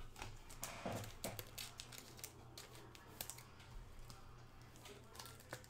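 Faint, irregular clicks and crinkles of hands handling trading-card packs and boxes on a table.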